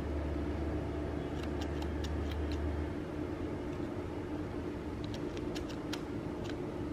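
Small plastic scissors snipping yarn: scattered light clicks in two short runs. Under them is a steady low hum that stops about three seconds in.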